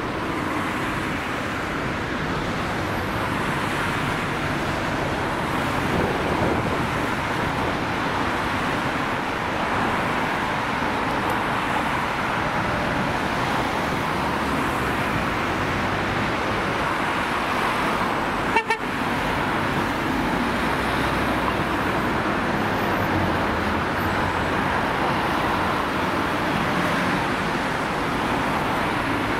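Busy city road traffic with the horn-like two-tone siren of French SAMU ambulances sounding through it. There is a brief break about two-thirds of the way in.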